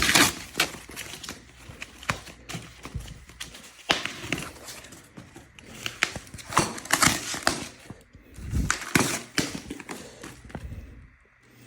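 E-bike packaging being handled and pulled off: irregular rustling and crinkling with scattered sharp clicks and knocks.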